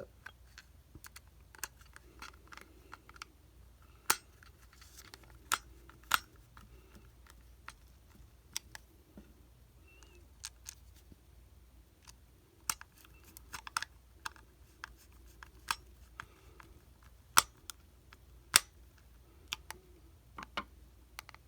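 A small screwdriver tightening screws into a plastic walkie-talkie casing, making scattered irregular clicks and ticks of metal on screw heads and plastic. Two louder clicks come about a second apart roughly two-thirds of the way through.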